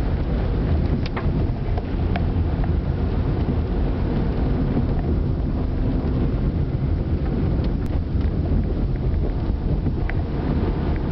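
Steady low rumble of engine and tyre noise inside a moving car's cabin, with a few faint ticks.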